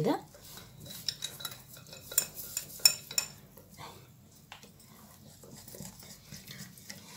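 Wire whisk beating a thin egg-and-flour batter in a glass bowl: a quick run of wires clicking and tapping on the glass, louder in the first half and softer from about four seconds in. The batter is being whisked smooth, free of lumps.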